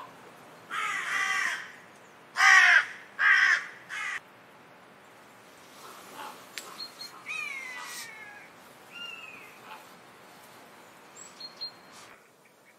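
Harsh, raspy bird calls, four in the first four seconds, the second and third the loudest. Then fainter high chirps and short falling whistles.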